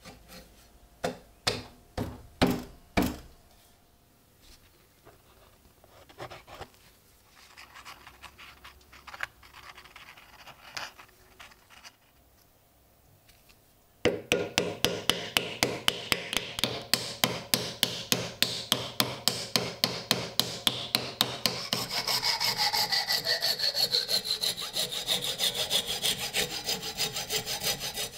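A hand saw cutting through a wooden axe handle in quick, even back-and-forth strokes, about two or three a second. Near the end the strokes run together into a continuous rasp with a falling whine from the blade. Before the sawing, in the first three seconds, a handful of sharp knocks are heard as the handle is seated in the axe head.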